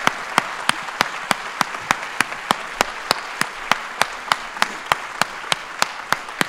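Audience applause, with the crowd clapping in unison at a steady rhythm of about three claps a second over the general clapping.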